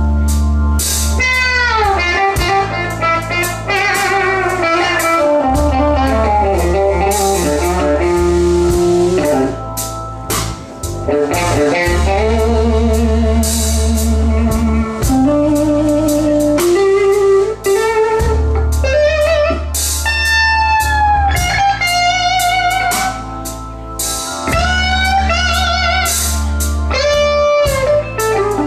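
Live blues band: an electric guitar plays a slow lead full of bent notes over long held bass notes and drums.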